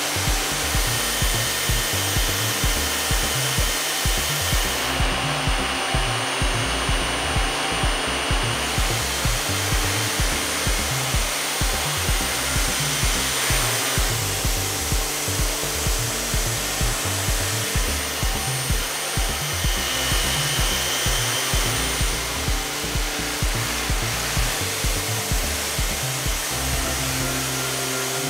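Background music with a steady beat of about two pulses a second, over a steady rushing hiss.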